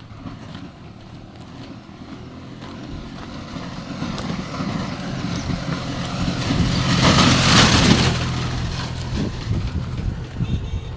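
A motor vehicle approaching and passing close by, growing louder to a peak about seven to eight seconds in, then fading.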